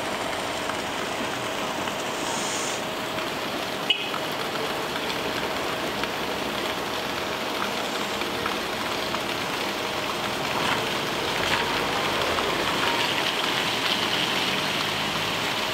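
Steady rushing of a mountain river. A faint steady hum runs underneath, and there is one sharp click about four seconds in.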